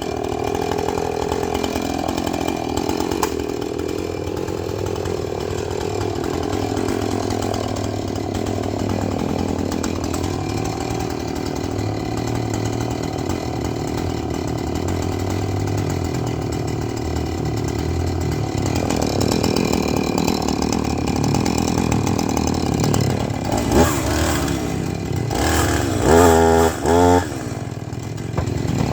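Husqvarna two-stroke chainsaw running and cutting through logs, its engine held at a steady pitch under load for a long stretch. Near the end the revs rise and fall several times.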